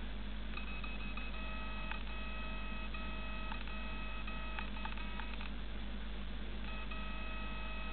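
A steady electronic beeping tone, held in long stretches with brief breaks, stopping for about a second and starting again near the end, over a low steady hum.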